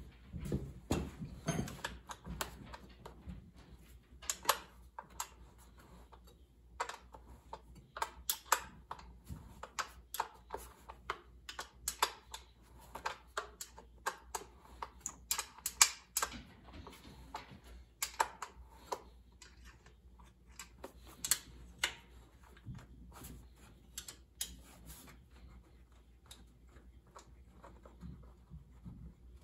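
Irregular sharp clicks and taps of hand tools on metal fasteners as the blower shroud is taken off a lawn tractor's Briggs & Stratton single-cylinder engine, thinning out near the end.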